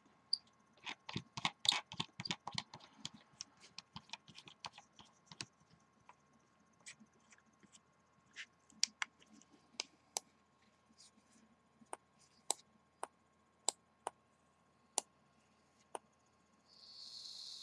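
Faint small clicks and taps from a rebuildable dripping atomizer being screwed onto an ohm meter's threaded connector and handled. The clicks come thick and fast at first, then singly every half second or so, with a brief hiss near the end.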